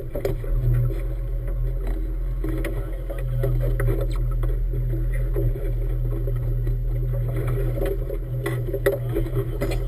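Motorboat engine running steadily, a constant low hum, with scattered slaps and knocks of choppy water against the hull.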